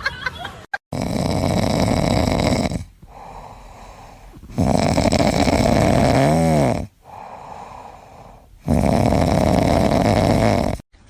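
A pet snoring: three long, loud snores about two seconds each, with quieter breathing in between. The middle snore has a brief whistling squeak in it.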